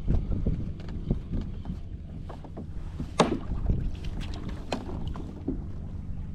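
Wind buffeting the microphone as a low rumble, with scattered small knocks and water slaps around the kayak and one sharper knock about three seconds in.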